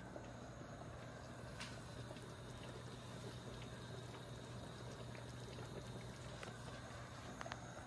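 Oxtail boiling in water in a large stainless-steel stockpot: a faint, steady bubbling.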